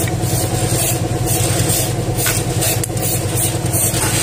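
An engine running steadily at idle, with a few faint clicks along the way.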